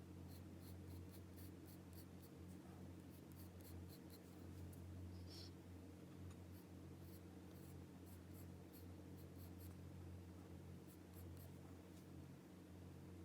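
Graphite pencil scratching on paper in short, irregular strokes, often in quick runs, faint over a steady low hum.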